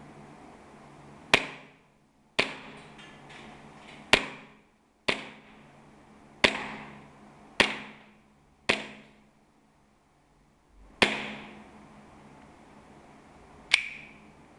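KSC G26C gas blowback airsoft pistol firing single shots on green gas: nine sharp cracks, spaced about one to nearly three seconds apart, each dying away quickly.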